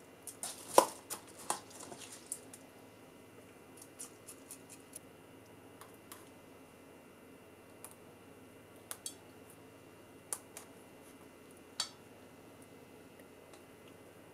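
Metal spoon clinking and scraping in a stainless steel bowl of rice: a quick run of clicks in the first couple of seconds, the loudest about a second in, then a few scattered light clicks as the rice is worked into a squid tube.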